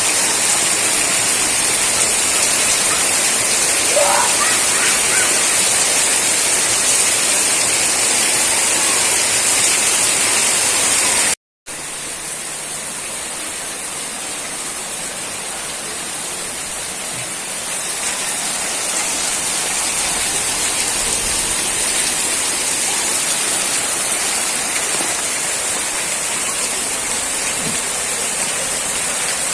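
Steady hiss of heavy rainfall. It cuts out for a moment about eleven seconds in, then resumes a little quieter.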